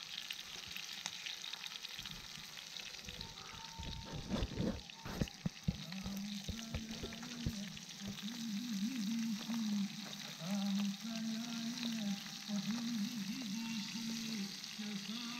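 Cornmeal-coated freshwater perch frying in oil in a pan over a wood fire: a steady sizzle, with a few sharp clicks of the utensil against the pan about four to six seconds in as the pieces are turned. From about six seconds on a low wavering tune comes and goes over the frying.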